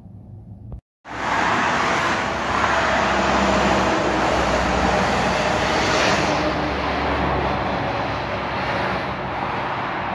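Highway traffic: a motor vehicle passing close by, tyre rush and engine hum, starting abruptly about a second in, strongest for the next few seconds and then slowly easing.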